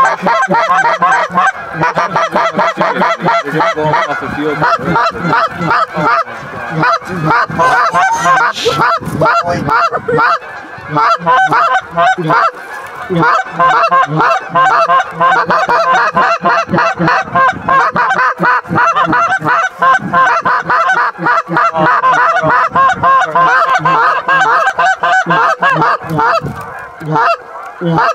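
A large flock of Canada geese honking, a continuous clamour of many overlapping calls, as the flock circles in to land on a field.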